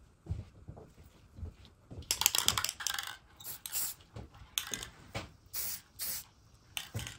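Finishing pad rubbing oil into a wooden door in a series of short hissing strokes, starting about two seconds in with a longer, louder stroke, after a few soft handling knocks.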